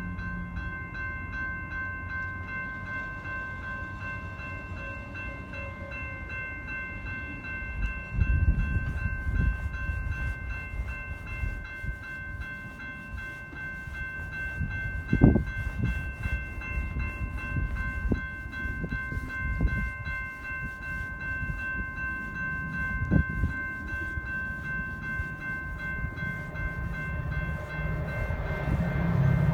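Railroad grade-crossing warning bells ringing steadily for a train approaching the station, with low wind rumble on the microphone. The approaching train's rumble grows near the end.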